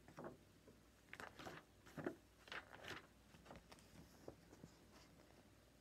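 Faint rustling and crinkling of a picture book's paper pages as the book is opened and a page is turned, several soft rustles in the first three seconds or so.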